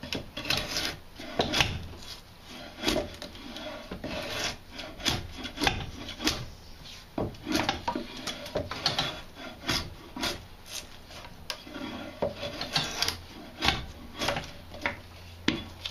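Drawknife pulled through an Osage orange bow stave clamped in a shaving horse, roughing out the bow: a series of short, uneven scraping strokes as shavings are peeled off the wood.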